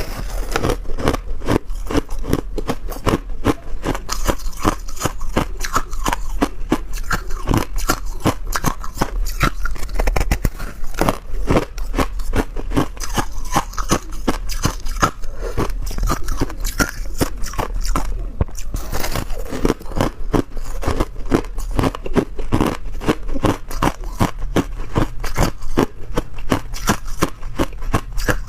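A person biting and chewing ice close to the microphone: a continuous run of rapid, sharp crunches as the ice cracks between the teeth.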